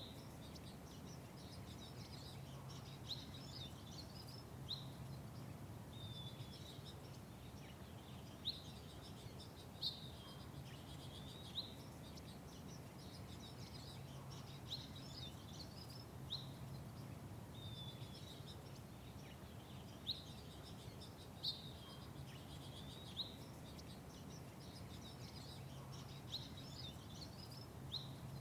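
Small songbirds chirping, short sharp chirps repeated every second or two, over a steady low hum of background noise.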